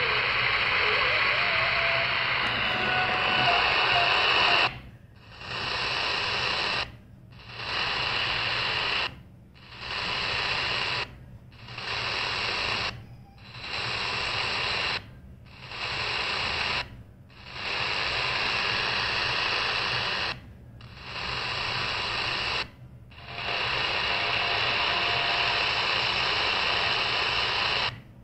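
CS-106 DSP portable radio hissing with medium-wave static from its speaker. From about five seconds in, the static drops out briefly about every two seconds as the tuning steps up the AM band one 9 kHz channel at a time: the DSP radio mutes on each step.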